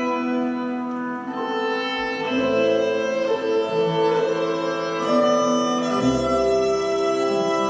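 Classical string music, violin and cello, playing slow held notes that change every second or two.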